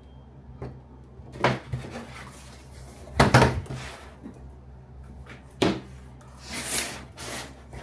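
Hard 3D-printed plastic parts being handled: a few separate knocks and clacks, the loudest a little after three seconds in, then a scraping slide near the end.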